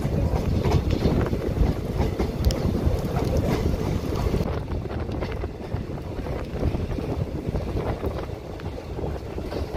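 Wind buffeting the microphone held out from a moving train, over the low rumble of the train running; the wind noise eases a little about halfway through.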